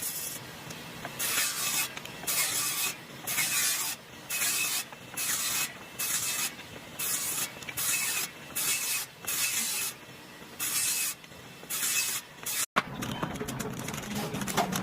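More than a dozen short bursts of hissing noise, each about half a second long and coming roughly once a second. Near the end there is a brief dropout, and a steadier, lower sound follows.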